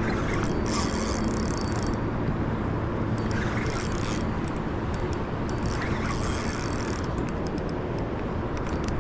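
Fast river current rushing steadily around a wading angler, with wind on the microphone. A spinning reel clicks and hisses in three short spells while a hooked trout is played.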